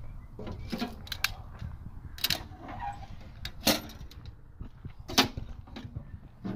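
Sharp metallic clanks and knocks, about five spread over several seconds, some ringing briefly: metal tongs striking and working the steel firebox of an Oklahoma Joe's offset smoker as split wood is loaded into it.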